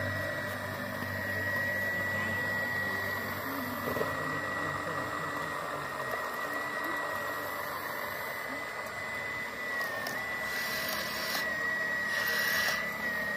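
Radio-controlled CAT model excavator's motor running with a steady high whine as the machine digs and swings; the pitch dips briefly about ten seconds in.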